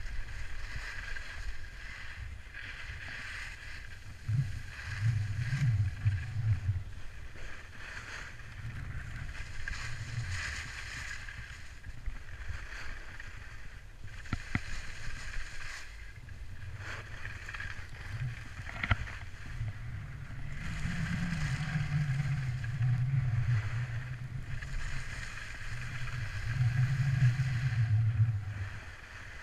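Wind rushing over a GoPro's microphone while skiing downhill, with the hiss of skis sliding on packed snow. The low rumble swells and fades in waves, loudest a few seconds in and over the last third, with a few small clicks.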